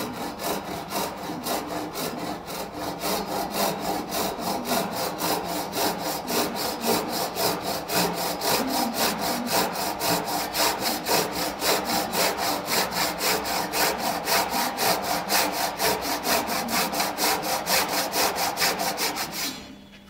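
Japanese handsaw cutting through a redwood timber, the teeth rasping in fast, even strokes, several a second. The sawing stops just before the end.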